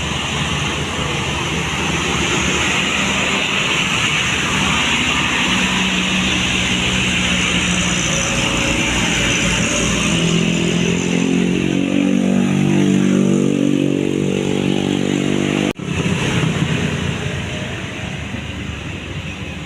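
Tour bus engine passing and accelerating, its pitch rising for several seconds. The sound drops out for an instant near the end, then returns and fades.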